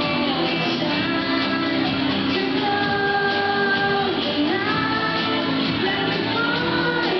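A young woman singing a pop song live into a microphone, backed by a band, with several long held notes.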